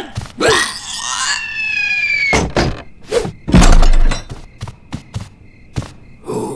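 Cartoon sound effects: a short squeaky creature vocal, then a high squealing tone that slides down and holds for about a second. After it comes a sharp knock, a heavy low thud about halfway through, the loudest sound, and then several quick light taps.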